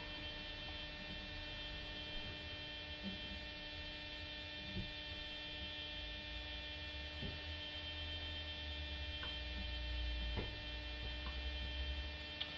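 Steady electrical mains hum with a low rumble that swells in the second half, and a few faint ticks.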